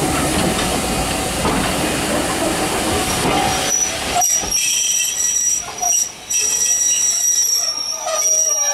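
Railway coaches rolling close by, a dense rumbling rush of wheels on the rails. About four seconds in, the steel wheels begin squealing: a steady high-pitched squeal, with a lower squeal gliding near the end.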